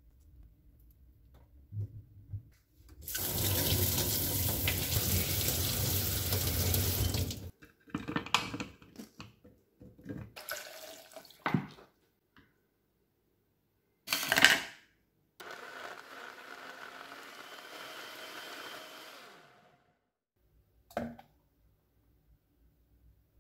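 Kitchen tap running into a stainless steel sink for about four seconds over cherry tomatoes in a mesh strainer. Scattered clicks and knocks follow, then a short sharp burst. After that comes a steady whir of about four seconds as the blender purées the tomatoes.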